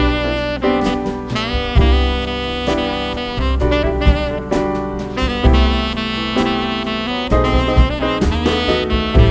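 Instrumental jazz music with a saxophone lead over bass and drums.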